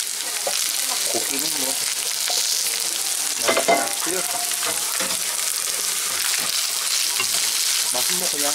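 Kimchi fried rice sizzling steadily in a nonstick frying pan as a wooden spatula stirs and scrapes it around, with a louder spatula stroke about three and a half seconds in.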